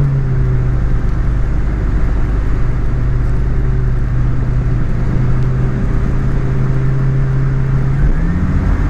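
Small aeroplane's piston engine and propeller droning steadily, heard from inside the cockpit. The engine note settles lower just as it begins and rises again about eight seconds in as engine speed picks up.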